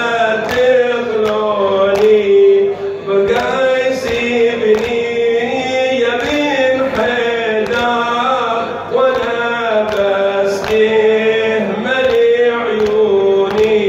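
A male reciter chanting an Arabic Shia nawha (lament) into a microphone, with the mourners' rhythmic chest-beating (latam) striking about three times every two seconds under the chant.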